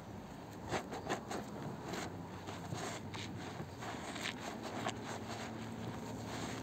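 A soapy, lather-filled sponge being squeezed and rubbed in the hands: irregular wet squelches and crackling clicks of foam, with two louder squishes about a second in.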